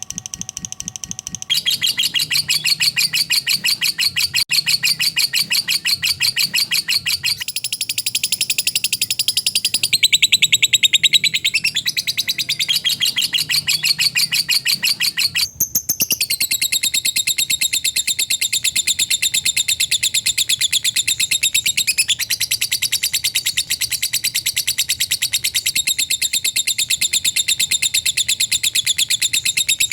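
Lovebird 'ngekek': a long, fast trill of rapid repeated high chattering notes, kept up almost without a break. The pitch and pattern shift a few times, with a momentary drop about halfway through.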